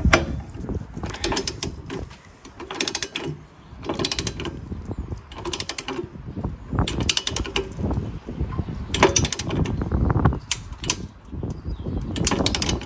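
Click-type torque wrench ratcheting on a spare tire carrier's mounting bolts: short bursts of rapid pawl clicks about every second as the handle is worked back and forth, with light knocks of the tool against the mount.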